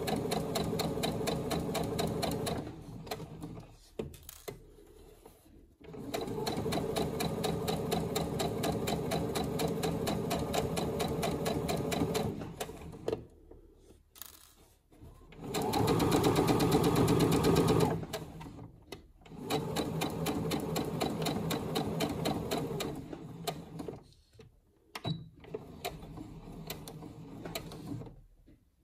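Electric sewing machine stitching a seam in four runs of a few seconds each, stopping briefly between them. The third run, a little past the middle, is the loudest.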